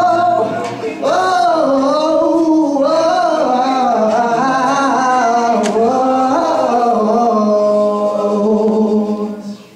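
Male a cappella group singing the closing bars of a song: a solo voice carries the melody over the other voices' sustained harmony, settling on a held final chord that fades out near the end.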